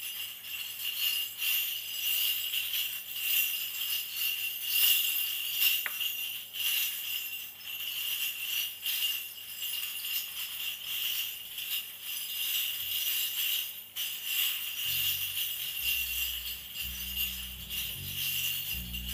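Sleigh bells shaken steadily, opening a Christmas song. About 15 seconds in, low bass notes come in underneath.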